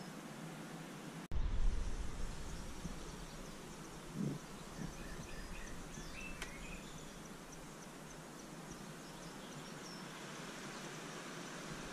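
Outdoor background noise: about a second in, a low rumble of wind on the microphone starts suddenly and fades over a second or so. A short low thump follows a few seconds later, with faint high chirps.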